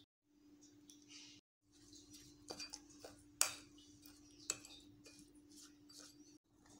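Metal spoon clinking against a small ceramic bowl while stirring a dry spice mix moistened with lemon juice: a few sharp clinks, loudest about three and a half seconds in, over a faint steady hum.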